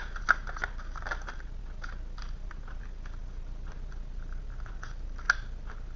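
Tarot cards being handled: a scattering of soft clicks and snaps of card stock, with one sharper snap about five seconds in.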